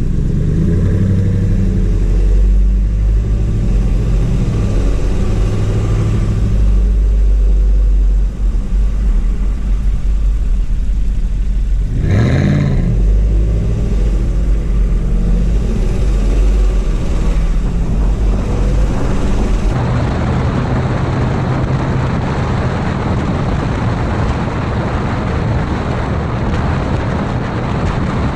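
Vehicle engine running and revving while driving, its pitch rising and falling sharply about twelve seconds in. From about twenty seconds in, a steady rush of wind and road noise takes over.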